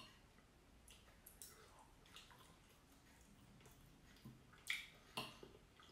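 Faint eating sounds: a knife and fork clicking and scraping against a plate, with a few soft wet clicks, the two loudest near the end.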